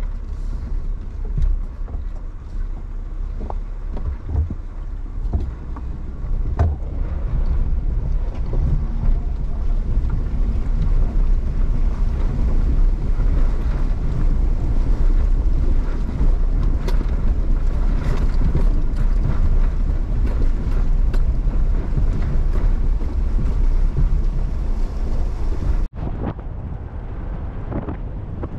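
Pickup truck fording a creek: water rushing and splashing against the truck over a steady low engine rumble, with scattered knocks. Near the end it cuts abruptly to a quieter, steadier drive along a dirt road.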